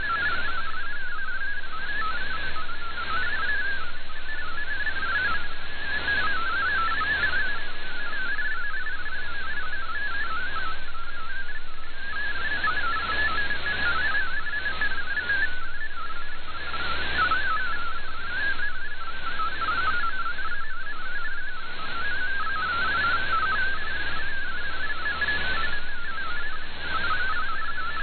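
MFSK32 digital text signal received on shortwave: a fast, continuous warble of hopping tones in a narrow band, over steady radio static hiss.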